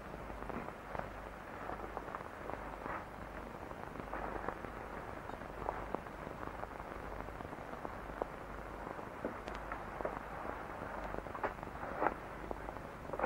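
Steady hiss with a low hum and many scattered crackles and clicks: the surface noise of a worn old film soundtrack.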